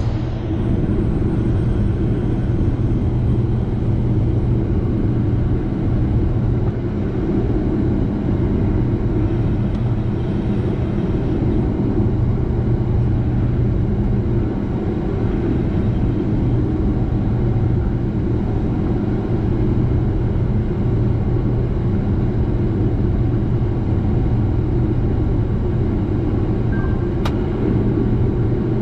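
Case IH 7088 combine running steadily, a constant low drone of engine and machinery with no change in speed. A brief click and short high tone near the end.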